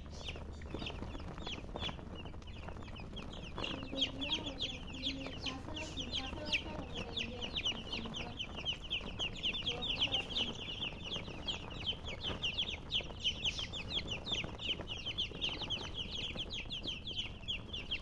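A flock of baby chicks peeping, many short high cheeps that each fall in pitch, overlapping in a steady stream that grows denser and louder from about halfway through. Fainter lower calls sound underneath in the first half.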